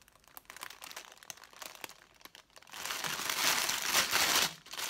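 Clear plastic wrapping crinkling as it is handled: light scattered rustles at first, then louder, continuous crinkling from about three seconds in that breaks off briefly just before the end.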